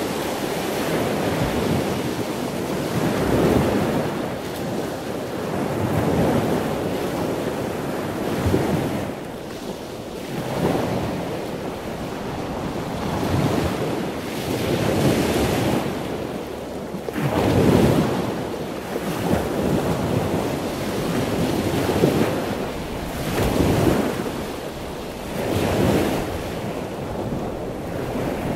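Wind buffeting the microphone over a choppy sea, with waves washing in repeated surges every couple of seconds.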